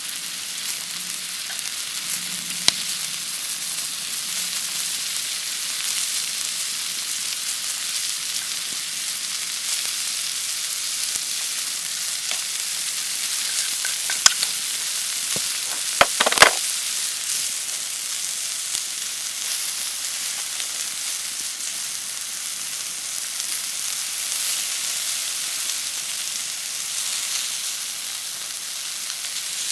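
Steady rain hiss that goes on without a break. A few sharp clicks cut through it, most of them bunched a little past the middle.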